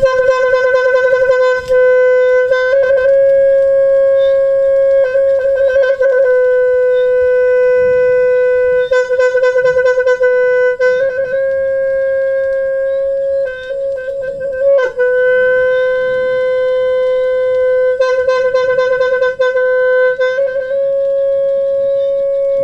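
Khmer horn blowing one long, loud, steady note, broken several times by rapid fluttering trills on the same pitch and a couple of short breaks around the middle.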